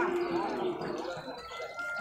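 Background din of a livestock market: voices of people talking among penned water buffalo, with one held, steady low call in the first half second.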